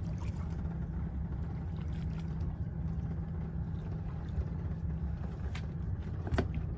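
Boat engine idling with a steady low hum, and a couple of short sharp clicks near the end.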